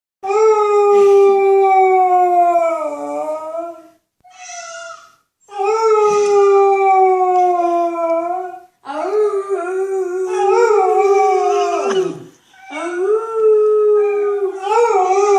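Pet dog howling: a string of long drawn-out howls, with one short howl about four seconds in, each sliding down in pitch as it ends and one wavering in the middle. The dog is howling in response to animal noises.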